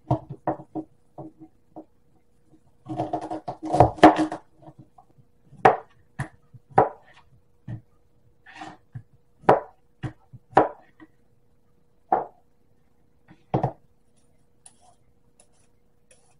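Chef's knife chopping vegetables on a plastic cutting board: single chops, mostly about a second apart, with a denser burst of clatter about three seconds in.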